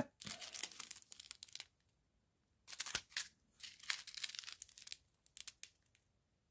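Small plastic bags of round diamond-painting drills crinkling as they are handled and set down, in several short bursts with pauses between.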